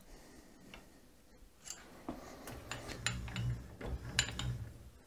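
A wrench tightening the compound slide's clamping screws on a toolroom lathe: a few light metallic clicks, with a low rumble and more clicks from about halfway through.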